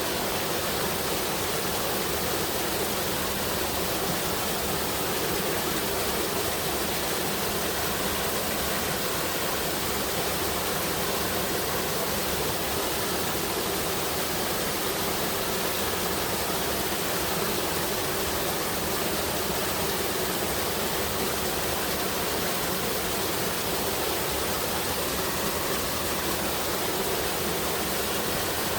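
Waterfall spilling into a mountain stream: a steady, unbroken rush of water that holds level throughout.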